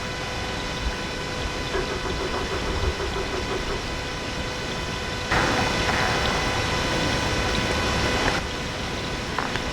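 Steady hiss with a constant thin whine, the noise of a night recording whose volume has been boosted. About five seconds in it turns louder and brighter for some three seconds, then drops back abruptly.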